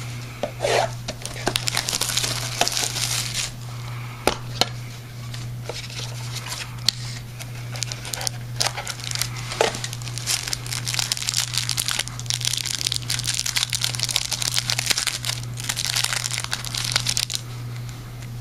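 Plastic wrapping on a sealed trading-card box and pack crinkling and tearing as it is opened by hand, with scattered small clicks and taps, over a steady low electrical hum.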